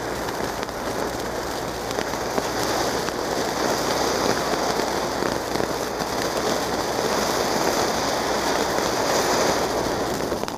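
Apple-shaped ground fountain firework (anar) spraying sparks with a steady rushing hiss flecked with faint crackles, getting a little louder about two seconds in.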